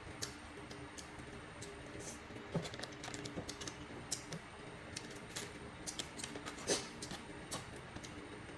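Eating and food-handling noises: irregular small clicks and crackles, a few louder ones, over a steady low hum.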